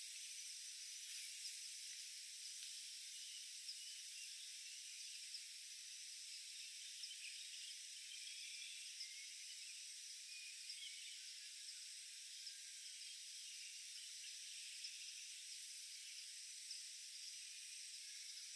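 Faint forest ambience: a steady high-pitched insect drone, with short bird chirps scattered throughout.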